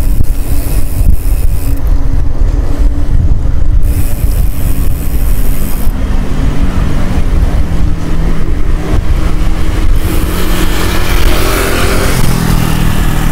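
Heavy wind rumble on the camera microphone of a moving bicycle. In the second half a motor scooter's engine drones, growing louder as it comes alongside and passes close.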